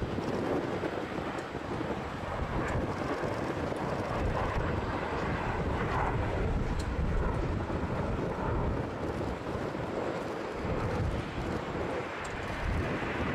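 Boeing 747 freighter's four jet engines producing a steady, rushing rumble as the jet touches down and rolls out along the runway.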